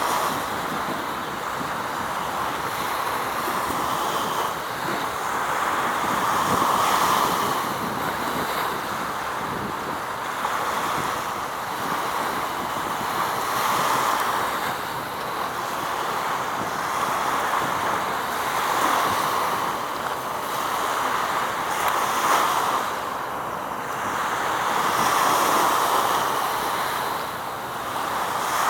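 Wind rushing over the microphone with waves washing below it, the noise swelling and easing every few seconds.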